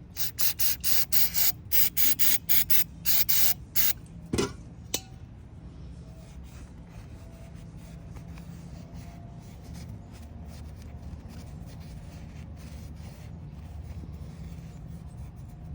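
Quick, hard rubbing strokes, about three a second, cleaning old intake gasket residue off a Harley-Davidson Shovelhead's intake mating surfaces. After about four seconds the strokes stop and only faint, light rubbing goes on.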